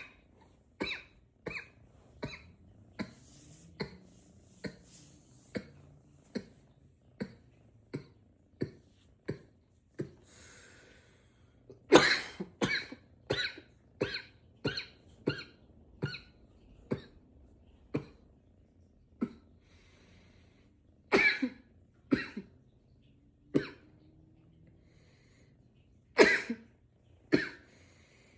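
A man coughing over and over: a long run of short, light single coughs about one every half second to second, broken now and then by louder, harder bouts of several coughs in quick succession.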